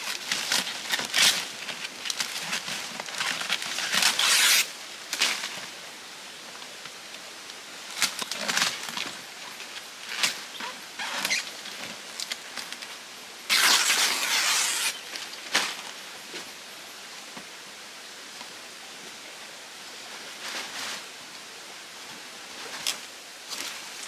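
Stiff palm fronds rustling and swishing in irregular bursts as they are handled and laid over a shelter frame, the loudest about four seconds in and again in the middle, over a steady hiss of flowing stream water.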